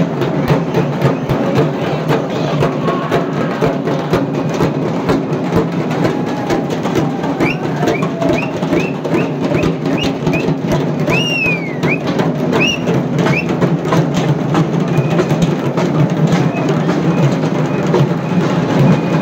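Procession drumming: rapid, continuous drum strokes with no let-up. About halfway through, a run of short, high, whistle-like chirps repeats about twice a second for several seconds.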